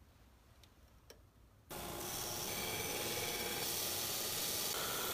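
Quiet with a couple of light clicks. Then, about a second and a half in, the abrasive belt of a Delta belt sander starts grinding the steel edge of a meat cleaver. It comes in abruptly as a steady, loud hiss with faint whining tones, throwing sparks as the edge is sharpened.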